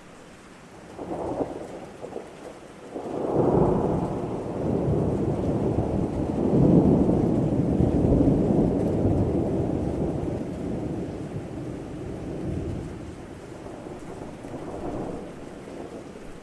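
Thunder rolling over steady rain: a short rumble about a second in, then a long, loud roll from about three seconds that peaks midway and slowly dies away, with a smaller swell near the end.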